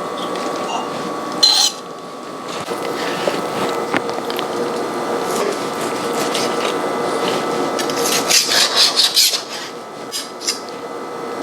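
Kitchen utensils scraping and rubbing as food is moved onto a plate, with a sharp clatter about a second and a half in and a quick run of clicks and scrapes near the end.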